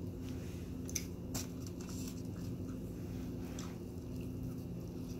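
Soft wet mouth sounds of biting and chewing an egg, sausage and cheese breakfast muffin sandwich, with a few short squishy clicks, over a steady low hum.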